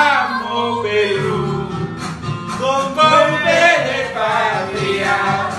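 A man singing over a guitar-backed music track.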